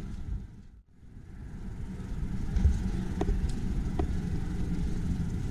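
Low rumbling noise on a walking handheld camera's microphone. It drops away almost to nothing just before a second in, then builds back to a steady rumble, with two faint clicks about three and four seconds in.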